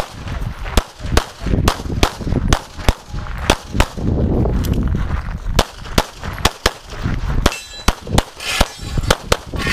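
CZ 75 pistol fired in rapid strings, about twenty sharp shots often in quick pairs with short pauses between groups, over a low rumble.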